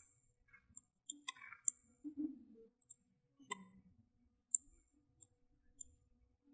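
Computer mouse buttons clicking: about eight faint single clicks spaced irregularly across a few seconds.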